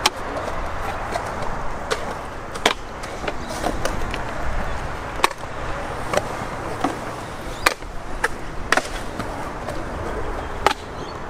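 Stunt scooter rolling on concrete: a steady rolling rumble from the wheels, broken by several sharp clacks as the deck and wheels strike the coping and land.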